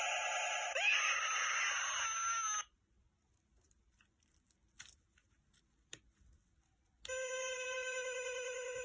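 Animated Halloween scarecrow's built-in sound module playing a warbling electronic tone that sweeps up in pitch about a second in and then cuts off abruptly. After a few seconds of near silence broken by two faint clicks, a new, lower warbling tone starts up near the end.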